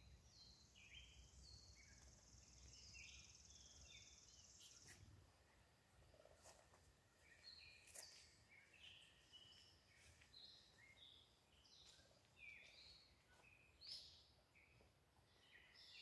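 Wild songbirds chirping and calling, many short notes scattered throughout, with a steady high buzz for the first five seconds. Faint.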